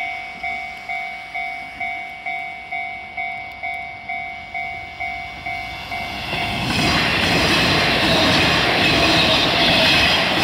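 Japanese level-crossing warning bell dinging steadily, about two strikes a second. About six seconds in, a Nishitetsu electric train passes close by, and its loud running noise on the rails drowns out the bell.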